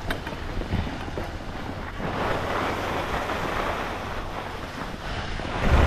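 Skis sliding and scraping over packed snow, with wind buffeting the microphone. The scraping grows louder about two seconds in, and a low gust of wind hits near the end.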